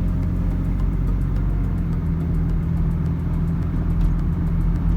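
1997 Ford F-150's 4.2-litre V6 engine and drivetrain running steadily under way, heard from inside the cab as a constant low drone. The 4R70W automatic transmission is in second gear after a prompt 1-2 upshift, the sign that the repaired 1-2 accumulator is working.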